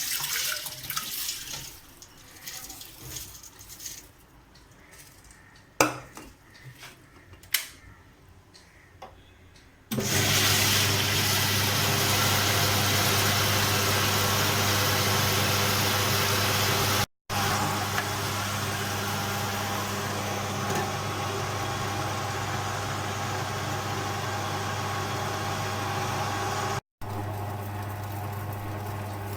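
A few scattered clicks and knocks, then about ten seconds in the Prestige wet grinder's motor starts and runs steadily, a low electric hum under a dense churning noise.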